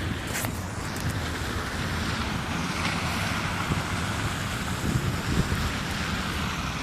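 Wind buffeting a phone's microphone in a snowstorm: a steady, low rushing noise.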